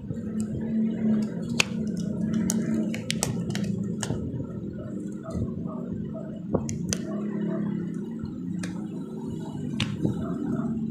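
Disposable exam gloves being pulled on and worked over the fingers: scattered sharp snaps and rubbery squishing, over a steady low hum.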